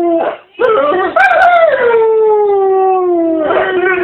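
A pet dog giving long, howl-like calls that its owner likens to a horse's noises: one call ends just after the start, then after a short pause a single call of about three seconds wavers and slowly falls in pitch.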